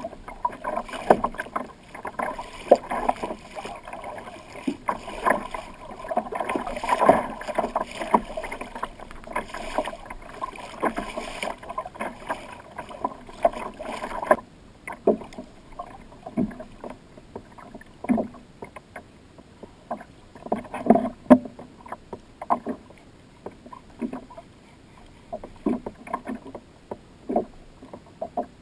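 Choppy water slapping and splashing against a plastic fishing kayak's hull, in irregular knocks and splashes. About halfway through the sound turns sparser and quieter.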